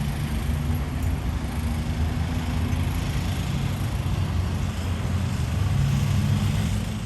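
An engine running steadily with a low hum, a little louder near the end.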